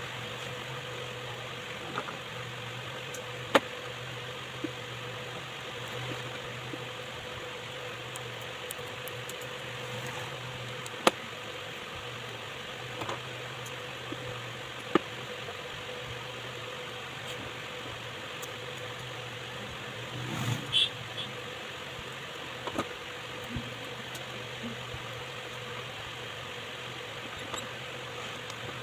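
Steady low hum of a running electric motor, with a few sharp single clicks and a short clatter of knocks about twenty seconds in.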